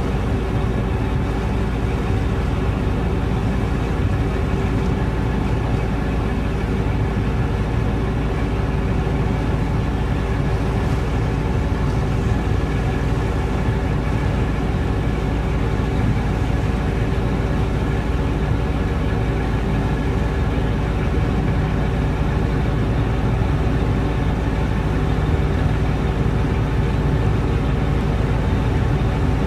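Fjord passenger ferry's diesel engine running steadily, heard on board as a constant low drone with several steady tones.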